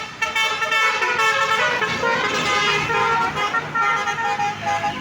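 Basuri telolet horn on a bus playing a melody of short notes that change pitch quickly, sounding over the bus's running engine.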